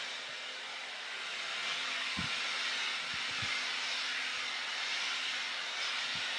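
CHI Deep Brilliance blow dryer running steadily, a constant rush of air. A few brief low thumps come about two, three and six seconds in.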